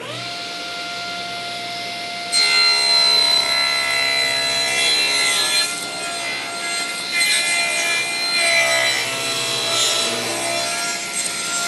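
Table saw switched on, its motor whining up to speed, then its blade ripping a rough-sawn board along its length. The cut starts about two seconds in, runs for most of the rest, and eases near the end while the saw keeps running.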